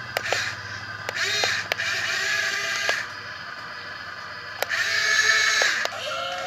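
Small geared electric motors of a mini excavator whirring in two bursts, each rising in pitch as it starts and then running steadily, with sharp mechanical clicks between.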